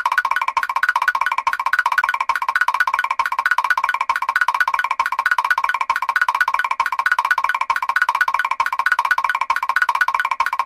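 Mr. Krabs's walking sound effect from SpongeBob SquarePants, looped: a quick, even clatter of short, hollow, pitched tapping notes.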